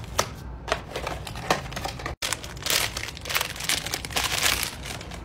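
A blind-box figure's white packaging bag being opened and crumpled by hand: a few separate sharp rustles, then dense crinkling through most of the second half.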